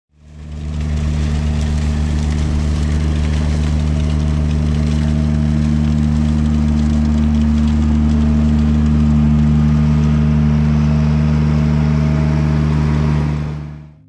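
Diesel engine of a Grimme Tectron 415 self-propelled potato harvester running at a steady speed. It fades in during the first second and fades out near the end.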